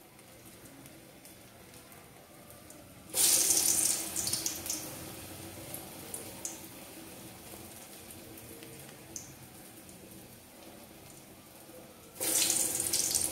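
Hot oil in a kadai sizzling sharply as a ball of urad dal vada batter is dropped in, about three seconds in and again near the end. Each hiss starts suddenly and dies down to a faint steady frying.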